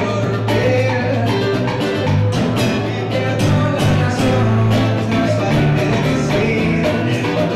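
Live Latin-style acoustic music: a nylon-string guitar strummed with a man singing, while a cowbell and a plastic block on a percussion stand are struck with a stick in a quick steady rhythm, under sustained low bass notes.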